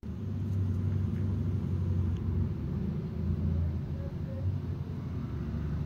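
A steady low rumble that fluctuates a little in level, with hardly anything higher-pitched above it.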